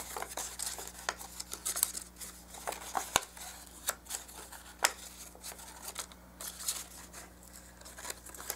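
Small printed cardstock box being folded and handled along its scored lines: irregular light paper clicks and crackles.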